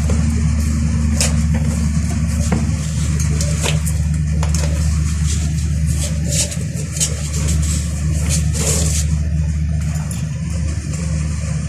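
Steady low machinery hum, with scattered clicks and scrapes of hand work on metal at irregular moments.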